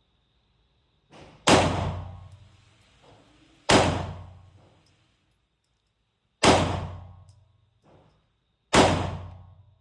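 Four 9mm pistol shots fired slowly, a few seconds apart, each followed by a long echo in an indoor range, with fainter knocks between them.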